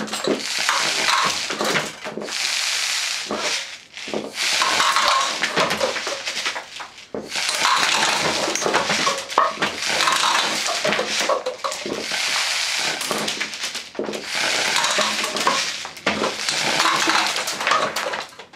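Homemade air gun firing in rapid-fire bursts of one to three seconds: a hissing rush of air full of fast rattling clicks as the shots hit paper cups and knock them down.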